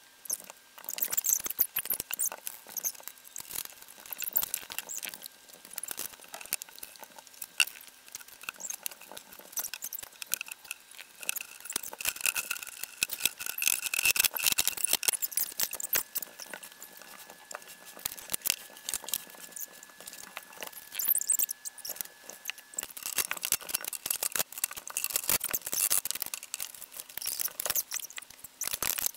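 Sped-up sound of an IKEA Hemnes daybed being assembled: a fast, dense clatter of small clicks and knocks from boards, metal rails and hardware being handled.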